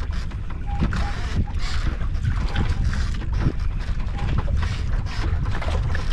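Wind rumbling on the microphone aboard a small wooden boat at sea, with scattered light knocks and clicks throughout.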